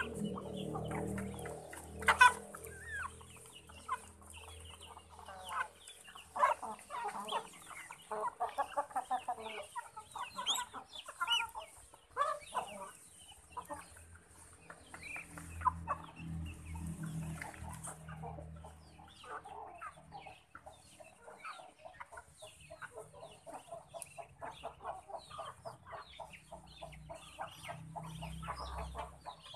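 A flock of chickens clucking while they feed, with many short calls that come thicker and faster in the second half.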